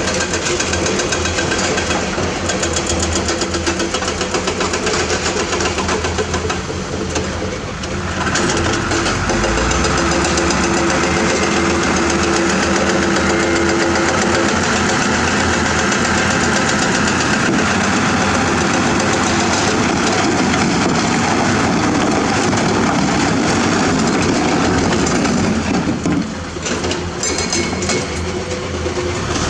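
Mitsubishi Fuso dump truck's diesel engine running, brought up to a higher, steady speed about eight seconds in as the dump bed tips up on its hydraulic hoist.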